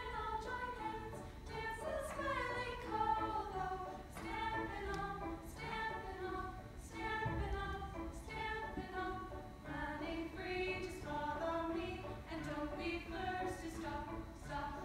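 A choir of female voices singing a slow song in held, changing notes, without clear instrumental accompaniment.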